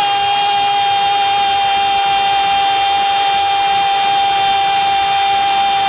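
A football commentator's drawn-out 'gooool' goal cry, one long shout held at a steady high pitch.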